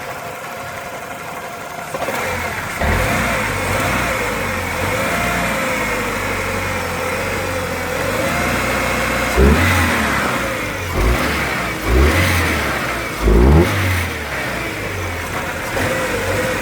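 A 2000 Ford Ranger's 2.5 L four-cylinder engine running with a misfire, revved briefly several times in the second half.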